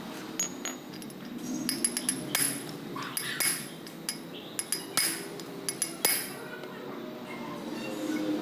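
Steel hammer knocking a new, longer wheel stud into a Daihatsu Charade brake drum hub, striking a steel piece set on the stud: a series of sharp metal-on-metal knocks at irregular intervals.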